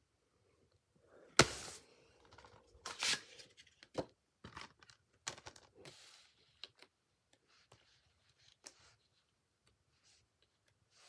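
A cardboard slipcover is slid off a plastic Blu-ray case, and the two are set down on carpet. A sharp knock comes about a second and a half in, followed by scraping and rustling with a few light taps, dying away in the last couple of seconds.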